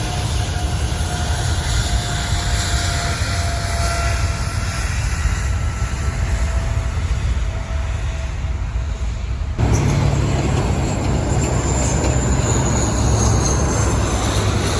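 Jet airliner engines at an airport, a steady rumble with faint, slowly falling tones. About two-thirds of the way through the sound cuts abruptly to a louder rumble with a high whine that slowly falls in pitch.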